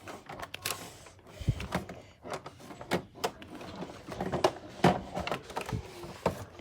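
Irregular knocks, bumps and clatters of things being handled and moved in a small room, with two sharper knocks just before the middle and the loudest cluster near the end.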